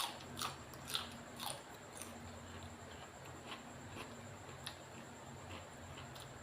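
A person chewing and smacking while eating, heard as short wet clicks, about two a second at first, then sparser and fainter.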